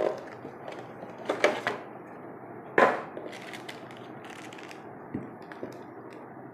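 Packaging being handled while a boxed speaker is unpacked: a few sharp knocks and rustles, the loudest about three seconds in.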